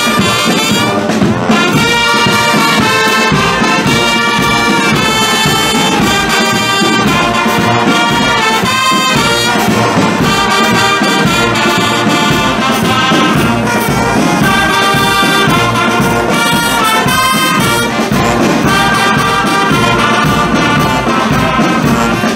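Brass band playing a tune, horns and tubas over a steady bass drum beat.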